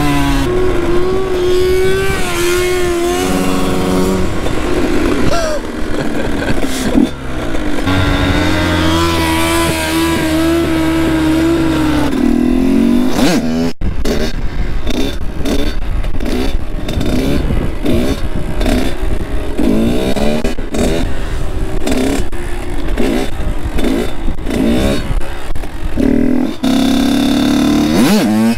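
Kawasaki KX85 two-stroke dirt-bike engine riding under way, its note climbing and dropping through gear changes. In the second half the revs rise and fall quickly over and over.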